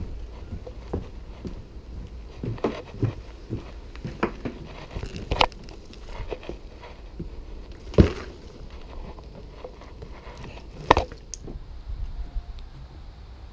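Footsteps and knocks on a painted wooden floating dock, irregular clicks and thumps with a few sharper knocks, the loudest about eight seconds in and another about eleven seconds in, over a steady low rumble.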